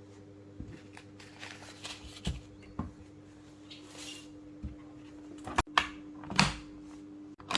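Steady low electrical hum with scattered clicks and rustles of handling, and a few louder knocks about five and a half to six and a half seconds in.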